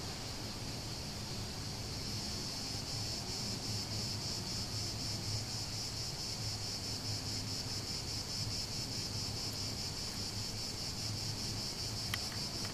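Cicadas chirring: a steady, rapidly pulsing high buzz that grows louder about two seconds in, over a low steady hum. A single click near the end.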